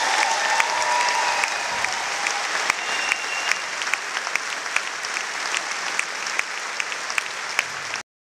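Audience applauding in a theatre. The clapping grows a little quieter, with individual claps standing out more as it goes, and it cuts off suddenly near the end.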